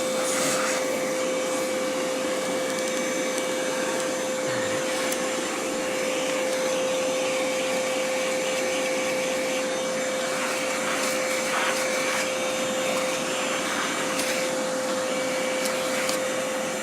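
Oreck XL hand vacuum running steadily with a constant motor whine, its brush attachment sucking dust off a vacuum cleaner's motor, with a few brief knocks along the way.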